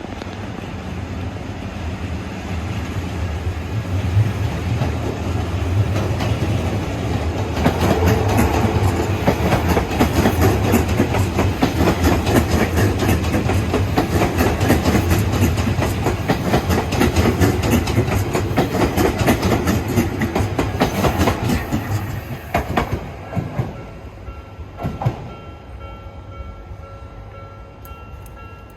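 An Odakyu Odawara Line electric train passing over a level crossing. It grows louder for the first several seconds, then its wheels clatter over the rail joints in a fast run of clicks through the middle, and it fades away near the end.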